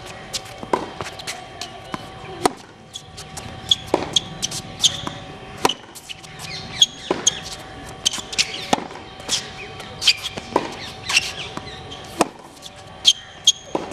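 Tennis ball being hit and bouncing in a hard-court rally: sharp pops of racket strings on the ball and the ball's bounces on the court, irregular, about one every second.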